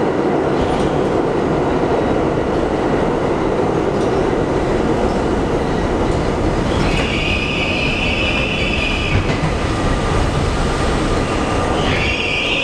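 Budd R32 New York subway car running, heard from inside the car: a steady loud rumble of wheels on rail. A high-pitched squeal comes in about seven seconds in for a couple of seconds, and again near the end.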